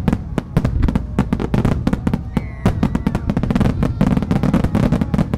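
A fireworks starmine firing at full density: a rapid, unbroken barrage of shell bursts and mine launch reports, many per second, with no pause.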